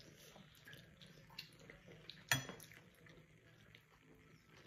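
Faint clicks and taps of eating with the fingers at the table while a fried chicken wing is dipped in a small sauce bowl, with one sharp clink a little over two seconds in.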